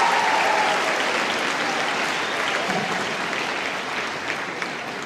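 Crowd of students clapping and cheering in a large gym, the applause fading away steadily.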